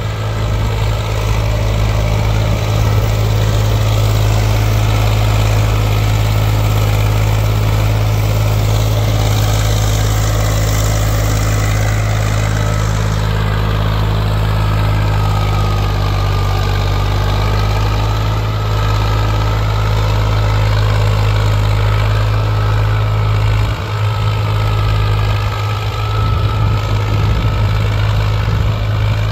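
Agri King 50 hp tractor's diesel engine running steadily under load as it pulls a mouldboard plough through the field.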